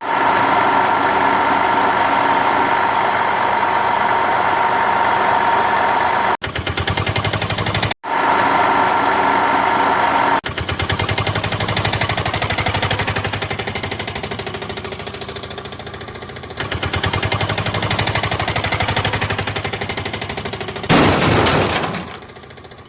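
Engine running with a rapid, even knocking pulse. It is cut off and restarts several times, and a short loud rush of noise comes near the end.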